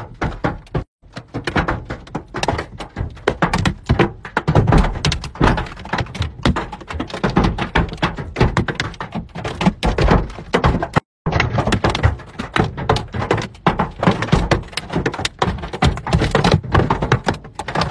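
Hailstones pelting a car's roof and windshield, heard from inside the cabin: a loud, dense, unbroken clatter of sharp knocks. It cuts out briefly twice, about a second in and about eleven seconds in.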